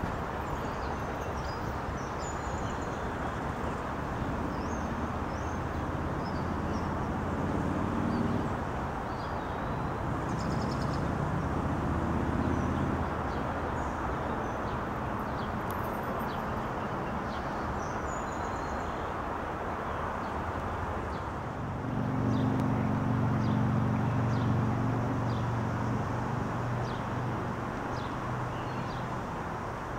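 A distant engine's steady low hum, which grows louder about two-thirds of the way through, over steady outdoor background noise, with birds chirping.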